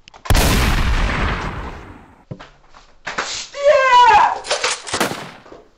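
A sudden loud bang like a gunshot, fading away over about a second and a half, followed about a second later by a man's loud, drawn-out yell that slides up and down in pitch.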